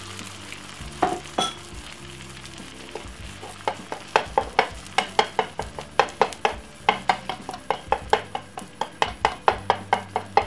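Black slotted plastic spatula tapping and scraping against a nonstick frying pan in quick strokes, about four clicks a second, over the steady sizzle of an egg omelette frying in oil. Two sharp knocks come about a second in.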